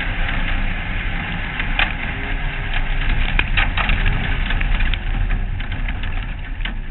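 Onboard audio of a short-course off-road race car at speed on a dirt track: a steady rumble of engine, wind and tyres with a faint wavering engine tone, broken by sharp clacks and cracks, the loudest between two and four seconds in.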